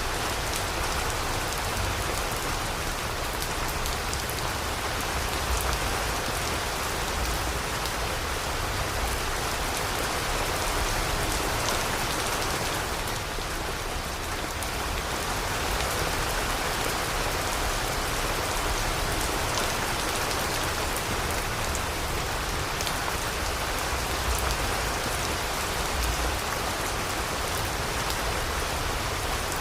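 Steady rain falling, a dense even hiss with many separate drops ticking through it.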